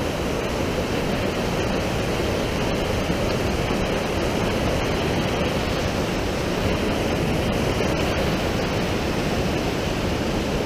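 Mountain creek cascading over boulders: a steady rush of white water.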